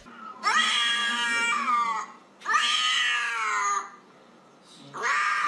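Young orange tabby cat giving long, drawn-out meows: three in a row, each about a second and a half, rising in pitch at the start and falling away at the end.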